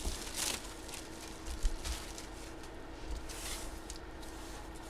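Faint, intermittent rustling of paper and plastic wrapping being handled, in a few short bursts, over a faint steady hum.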